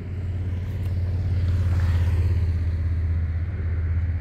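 Low steady rumble that swells to its loudest about two seconds in and eases off slightly toward the end.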